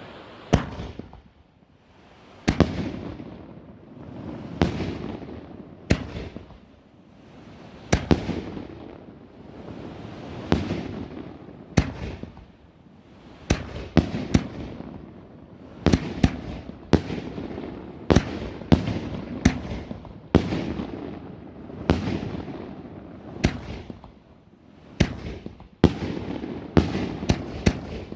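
4-inch canister aerial firework shells fired in quick succession: sharp bangs every second or two, coming faster near the end, each trailed by a rolling echo. There is no crackle effect.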